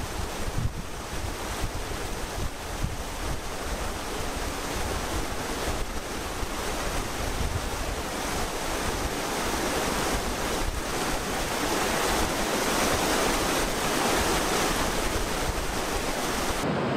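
Wind buffeting the microphone over a steady rushing hiss, which swells a little past the middle.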